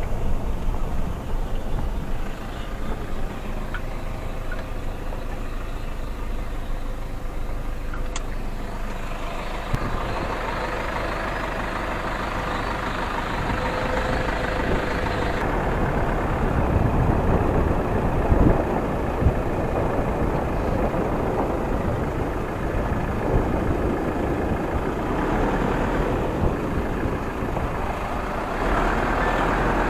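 Waterfall: falling water rushing steadily, getting louder about ten seconds in and again near the end.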